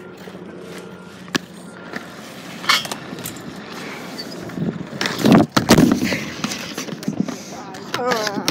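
BMX bike riding on a skate park's concrete and ramps: tyre roll with sharp clicks and knocks from the bike, then a louder rushing stretch about five seconds in, with a hard knock, as the bike drops in off a tall quarter pipe. A short wavering voice cry comes near the end.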